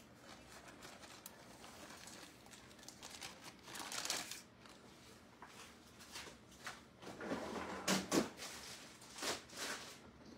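Plastic tortilla bag crinkling softly as it is closed and handled, then a few louder knocks and rustles in the second half as a refrigerator's bottom freezer drawer is pulled open.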